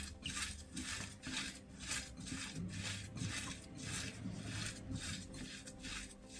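Hands squeezing and working pieces of dry bread in a ceramic bowl: a rhythmic rustling crunch, about three squeezes a second.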